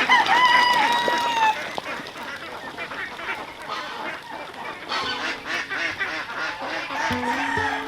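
Farm fowl calling: a long honking call in the first second and a half and another near the end, over a busy farmyard background. Background music with steady notes comes in about five seconds in.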